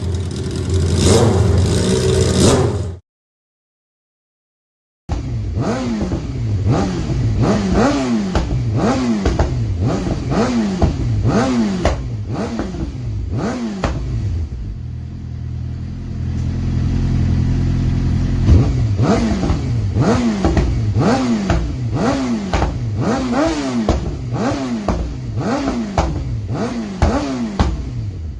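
Suzuki GSX-R 750 inline-four sport bike engine on an aftermarket exhaust, revved hard in quick blips about once a second, the pitch rising and falling each time, with sharp pops and crackles as the revs drop. A steadier stretch of running comes in the middle, and the sound cuts out completely for about two seconds near the start.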